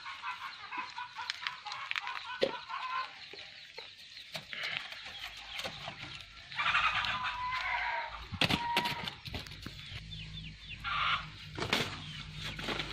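Chickens clucking in short repeated calls, with a louder burst of calling around the middle and a few sharp knocks.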